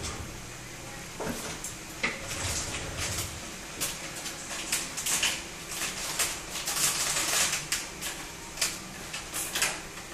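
Diced tomatillos frying with onion and garlic in oil in a pot: an irregular crackle of small pops and sizzles.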